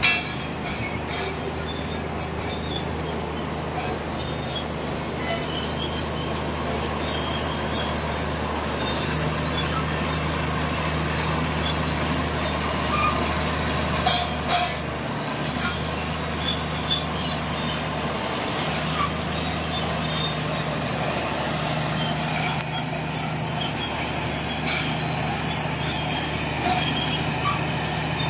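D155A crawler bulldozer running steadily, its diesel engine a constant low drone, with a thin high metallic squeal and scattered clinks over it.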